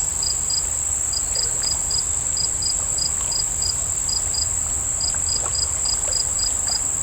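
Insects calling: a steady high-pitched insect drone with a cricket's short chirps repeating at about four a second in small groups, over a steady low rumble.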